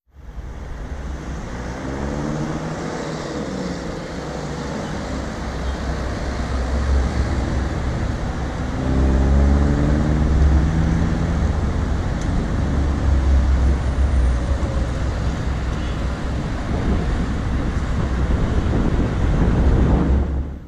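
City road traffic at a junction: a steady low rumble, with the engines of other vehicles rising and falling in pitch as they pass, once a couple of seconds in and again about halfway through.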